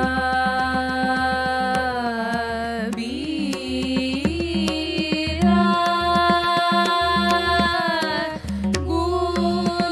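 Women singing a dhrupad composition in dhamar taal, holding long notes with slow pitch glides, over pakhawaj drum strokes.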